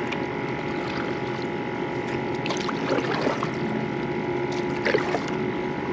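A paddle-board paddle dipping and pulling through calm water, with trickling, lapping water sounds and a few small splashes. A faint steady hum runs underneath.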